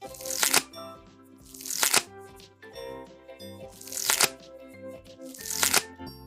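Background music: held notes, with a swishing swell recurring about every one and a half seconds.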